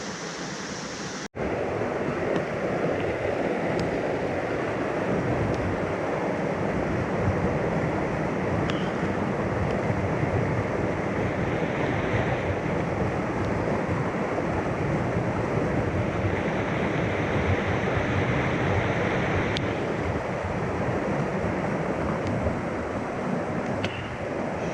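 Steady rushing of a mountain stream. It cuts out abruptly about a second in and comes back louder.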